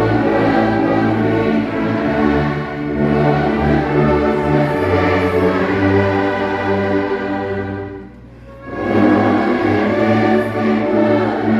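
A large brass-heavy church orchestra of tubas, euphoniums, trombones and trumpets playing a hymn in full, sustained chords. About eight seconds in the sound breaks off briefly between phrases, then the full ensemble comes back in.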